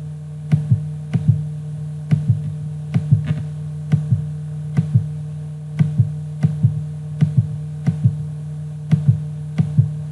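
Background music: a steady low drone under a soft, evenly repeating double beat, like a heartbeat, about two beats a second.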